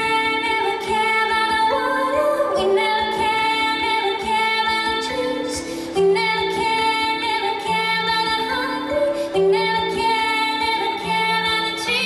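A woman singing long held notes over cello and piano playing a repeating figure of lower notes.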